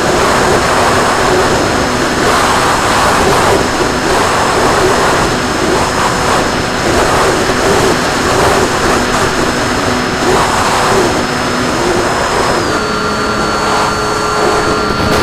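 RC plane in flight, heard from on board: its motor and propeller hum at a steady pitch under loud, gusting wind rush. Late on, the motor's tone steps suddenly to a different steady pitch.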